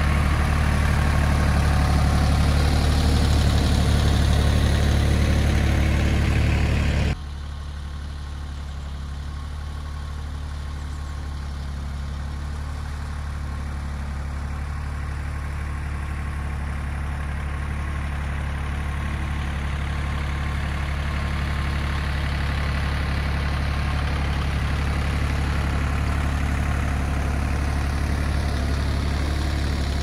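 Yanmar YM1802 compact tractor's diesel engine running steadily while pulling a single-furrow plough through the soil. About seven seconds in the sound drops suddenly, then slowly grows louder again.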